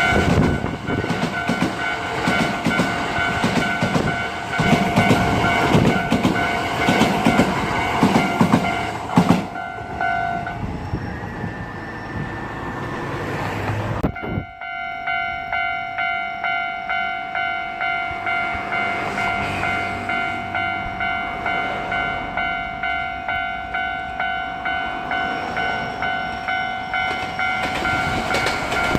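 A Hankyu Takarazuka Line electric train passing over a level crossing, wheels clattering on the rails, while the crossing's electronic alarm bell rings. About halfway through, the train noise breaks off suddenly. The crossing bell then rings on alone in a steady pulse, about one and a half strokes a second.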